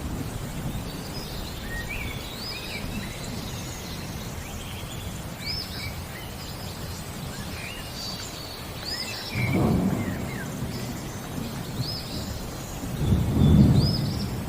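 Birds chirping in short repeated calls over steady rain, with thunder rumbling about two-thirds of the way in and again, louder, near the end.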